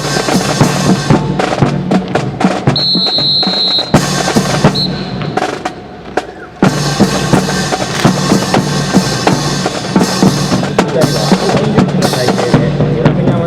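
Marching drum cadence of snare and bass drum played with rapid sharp strokes and rolls, thinning out for a couple of seconds around four to six seconds in. A short high steady tone sounds briefly near three seconds.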